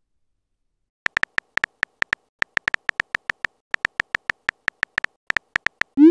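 Virtual keyboard typing sound effect of a texting-story app: a quick, uneven run of short, identical pitched clicks, one per letter as a message is typed out. It starts about a second in and ends with a short rising swoop right at the end as the message is sent.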